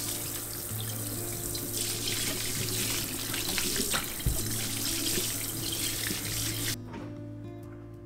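Kitchen faucet running in a stainless steel sink as a watermelon is rinsed under the stream, with water splashing off the melon and sink. There is one dull knock about four seconds in. The water cuts off abruptly near the end, and soft background music plays throughout.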